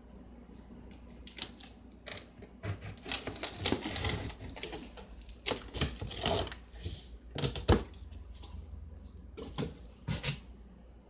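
A large cardboard box being opened by hand: tape and flaps scraped, torn and pulled back in irregular rustles and scrapes, with one sharp knock a little past the middle.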